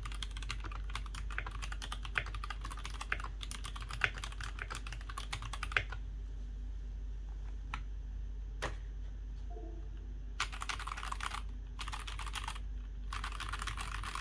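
Typing on a GK68X mechanical keyboard with stock, unlubed Gateron Milky Yellow switches, an aluminium plate and an acrylic sandwich case. A steady run of fast keystrokes for about six seconds, then a few scattered single key presses, then three short runs of very rapid typing near the end.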